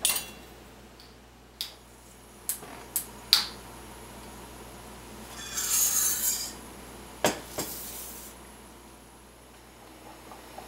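Metal spoon clinking against a stainless steel percolator basket and bowl while ground roasted acorns are spooned in: a few sharp clinks in the first few seconds, then a short hiss about six seconds in and one sharp clack a second later.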